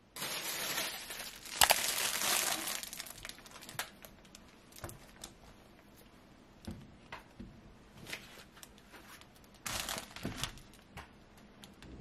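Plastic produce bags crinkling as vegetables are set down on a wooden cutting board, loudest in the first three seconds and again briefly about ten seconds in, with light knocks in between.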